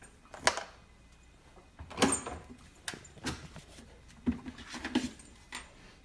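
A string of short knocks, clunks and rustles, about eight in six seconds: a husky puppy clambering into an open refrigerator and bumping its shelves and door bins as it settles on the bottom shelf.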